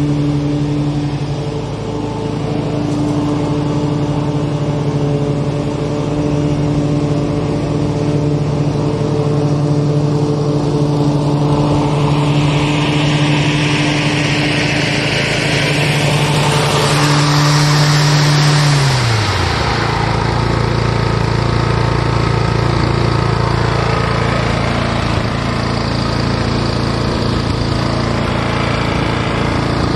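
Lawn mower engine running steadily under load. About two-thirds of the way through, its note drops away in pitch and it settles to a lower, steady running note.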